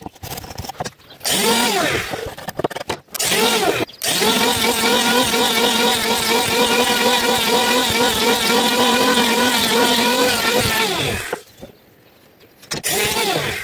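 Electric wood planer running: a first burst with its motor spinning up about a second in, then about seven seconds of steady running as it shaves down a toona wood plank. The motor winds down with a falling pitch, and after a brief pause it starts again near the end.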